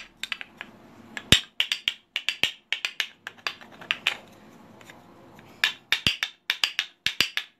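Turkish wooden spoons played with both hands, clicked together in a rhythmic run of sharp wooden clacks. The clacking thins out a little past the middle, then comes back dense near the end.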